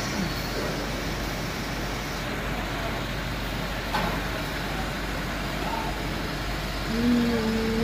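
Chicago Pneumatic CPB 30 rotary screw air compressor running, a steady dense mechanical noise heard close up inside its cabinet. A single click comes about four seconds in, and a low steady hum joins near the end.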